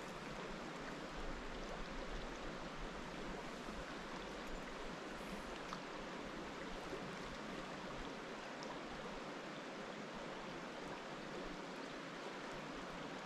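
Steady rush of flowing water from a mountain trout stream.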